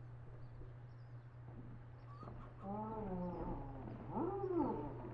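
An animal calling twice: a drawn-out wavering call about halfway through, then a shorter arching call near the end.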